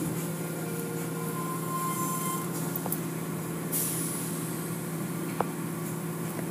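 Automatic tunnel car wash machinery heard from inside the car: a steady hum of the wash's motors and pumps, with water and the overhead hanging cloth strips washing over the car. A brief high hiss comes a little under four seconds in, and a sharp click about five and a half seconds in.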